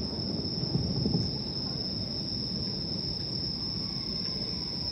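Night insects chirring steadily in one continuous high tone, over a low, even outdoor rumble.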